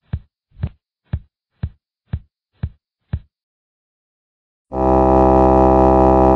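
Sound-effect clips: a run of seven short low thumps, evenly spaced at about two a second, then after a pause of about a second and a half a loud, steady buzzing tone that lasts under two seconds and cuts off suddenly.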